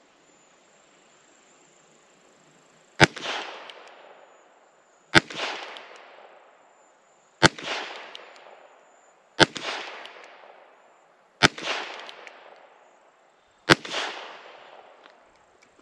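Six shots from a Heritage Rough Rider .22 LR single-action revolver firing Federal 40-grain lead round nose ammunition, about two seconds apart, each with a short echoing tail. All six fire normally, with no misfire or weak shot.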